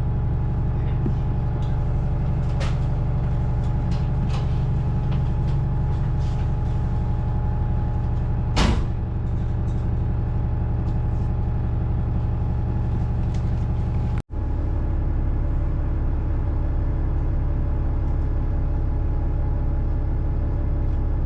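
Bus engine running steadily, heard from inside the cabin as a low drone with a steady hum over it. A little under halfway through there is one short loud burst of noise, and about two-thirds through the sound cuts out for an instant.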